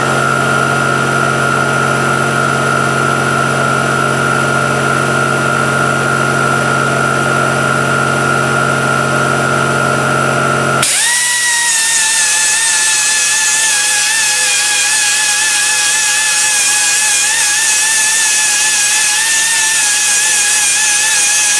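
High-speed power tool running with a steady whine. About halfway through, its pitch jumps to a new, slightly wavering note that holds to the end.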